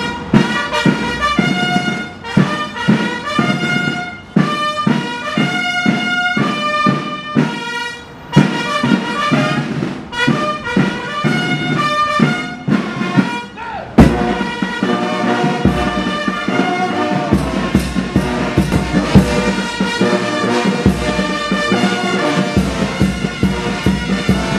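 Brass band playing ceremonial honours music, trumpets and trombones on held notes. About halfway through, a sharp hit and the band comes in fuller, with low notes underneath.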